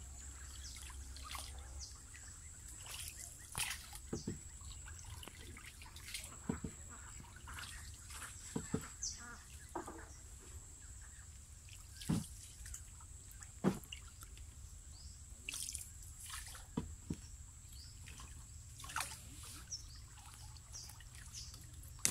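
A wooden paddle dipping and pulling through still canal water from a small wooden boat: irregular light splashes, drips and trickles, with scattered sharp taps.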